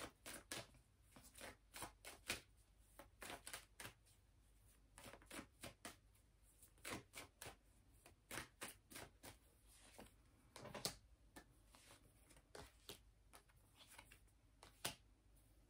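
Tarot cards being shuffled and handled: faint, irregular flicks and taps, a few a second, with a couple of slightly louder snaps near the end.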